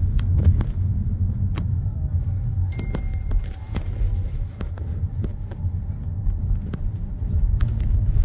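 Loud, steady low rumble, as of a vehicle running, with scattered clicks and knocks and a brief steady high tone about three seconds in.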